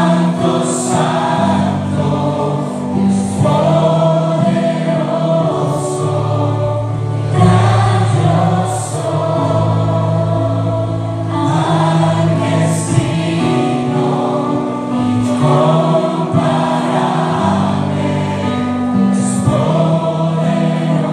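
Live Spanish-language worship song: a male lead singer on a microphone, backed by acoustic guitar and keyboard, with many voices singing along.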